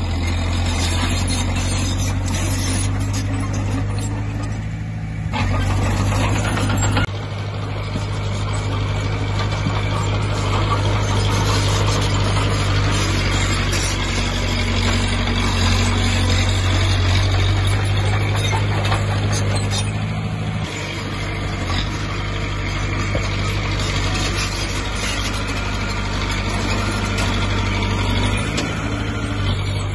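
Diesel engine of a small Komatsu D20P crawler bulldozer running steadily, its level shifting abruptly a few times, about five seconds, seven seconds and twenty seconds in.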